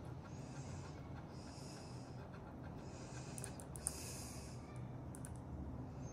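A person breathing close to the microphone in soft, even breaths about once a second. A few light clicks from the buttons of a Suunto Ocean dive watch come around the middle, one sharper than the rest.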